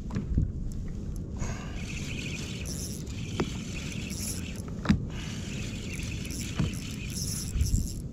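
Steady wind and water noise around a fishing kayak at sea, with three short sharp knocks in the middle of it, the second the loudest.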